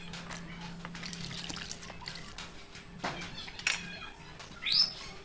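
Coconut strips dropped into a bowl of water, with small splashes and a few light knocks around three seconds in. A chicken gives a short call near the end over a faint steady hum.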